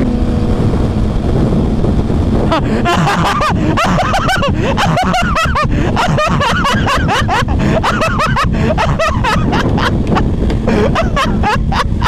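Triumph Speed Triple's inline-three engine running at steady highway cruising speed, under heavy wind rush and buffeting on a helmet-mounted microphone.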